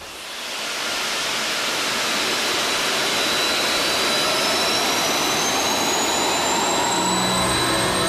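Jet engine spooling up: a dense roar that swells in over the first second, with a steady high whine and other whines that climb slowly in pitch. Music comes in near the end.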